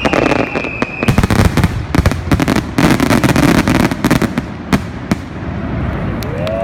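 Fireworks bursting, a rapid run of sharp bangs and crackles, densest in the middle. A whistle slides down in pitch and fades out in the first second and a half.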